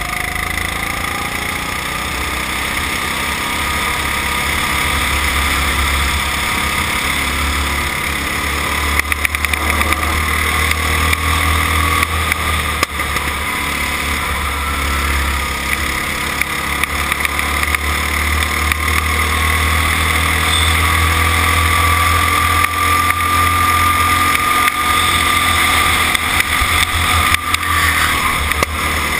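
Racing kart's engine running at speed, heard from a camera mounted on the kart, its pitch rising and falling a little over the lap, over a steady low rumble.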